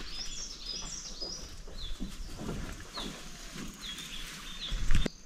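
Small birds chirping, short high falling notes repeated every second or so. A few soft knocks and one loud low thump near the end.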